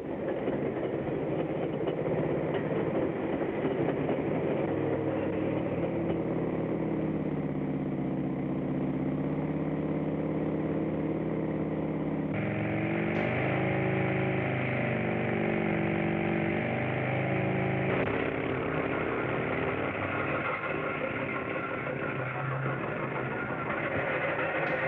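Railway train running on the track: a steady mechanical rumble with several steady tones over it. The sound changes abruptly about halfway through and again about three quarters of the way through.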